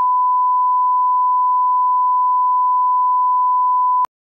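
Line-up test tone played with colour bars: a single steady 1 kHz sine tone at an even level that cuts off abruptly about four seconds in.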